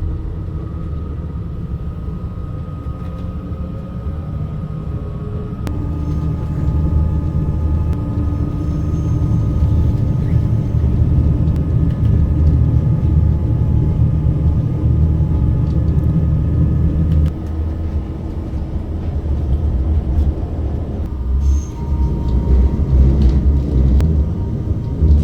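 Passenger train running, heard from inside the carriage: a steady heavy low rumble of wheels on rails with a faint steady whine. It grows louder about six seconds in.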